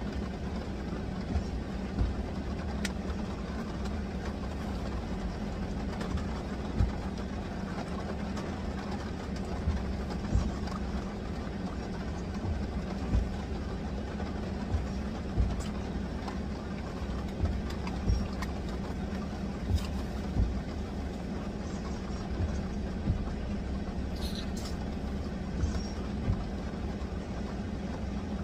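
Heavy rain beating steadily on a parked car, heard from inside the cabin over the car's engine idling, with scattered low thumps every second or two.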